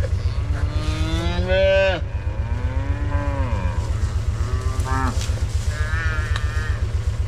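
Cattle mooing, about four calls, the first long and rising in pitch, over the steady low throb of an idling utility-vehicle engine.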